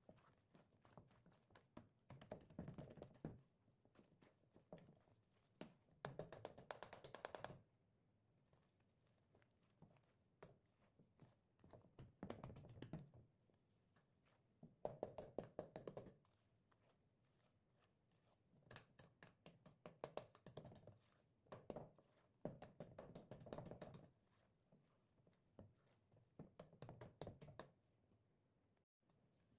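Wire whisk stirring stiff cookie dough in a stainless steel bowl: quiet bursts of quick clicking and scraping strokes against the metal, a second or two each, with short pauses between.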